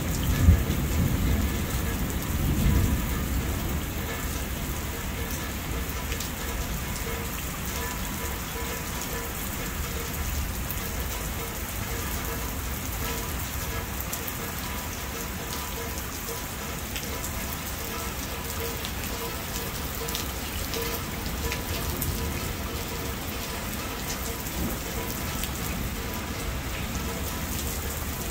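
Steady rain of a thunderstorm falling on a patio roof and the ground around it. Thunder rumbles twice in the first three seconds: a sharp crack about half a second in and a second rumble about three seconds in.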